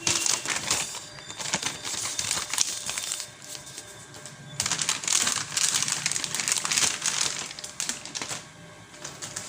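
Packaging crinkling and rustling as a new soldering iron is unwrapped by hand, in two bouts with a short lull between them.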